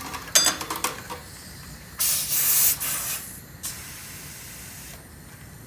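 Air hissing in short bursts at a bicycle tire's valve stem as the inner tube is inflated: a brief burst with a few clicks near the start, then a louder burst about two seconds in that tails off to a faint hiss.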